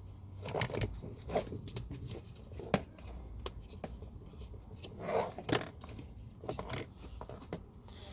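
A new pleated cabin air filter being pushed by hand into the plastic filter housing of a 2002–2006 Toyota Camry: scraping and rustling of the filter frame against the housing, with scattered light plastic clicks and one sharper click a little before the middle.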